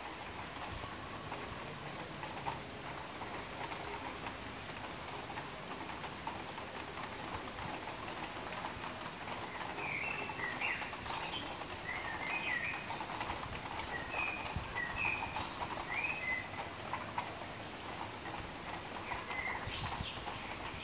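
Steady rain with drops ticking on hard surfaces. From about halfway through, a bird gives a run of short high chirps, with a few more near the end.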